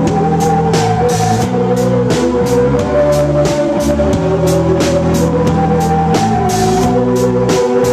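Live band playing an instrumental passage without vocals: a drum kit keeps a steady beat of cymbal and drum hits under held notes from the other instruments.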